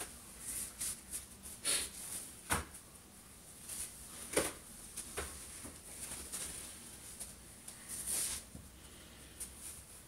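Clothing rustling as a dress is pulled on and adjusted, with a few sharp clicks and knocks scattered through it.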